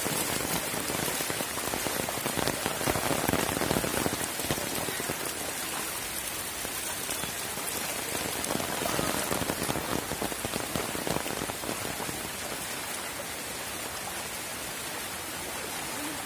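Steady rain falling on hard surfaces: a dense hiss of drops, a little louder in the first few seconds.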